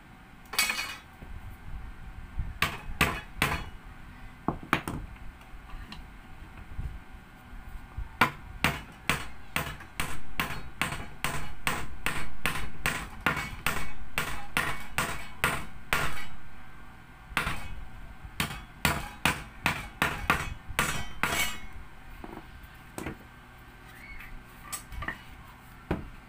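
Hammer driving nails into wooden slats to join the corners of a nail-studded doormat-weaving frame: a few single blows early, then two long runs of quick strikes at about three a second, tapering off near the end.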